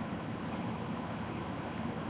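Steady hiss with a low rumble: room noise picked up by a cheap webcam microphone.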